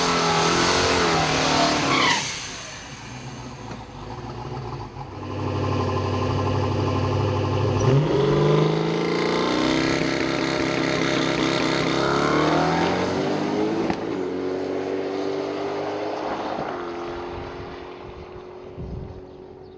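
Twin-turbo 330 cubic inch small block Ford V8 in a 1988 Mustang running hard, its pitch rising sharply several times as it revs and accelerates. Near the end it settles to a steadier note that fades away.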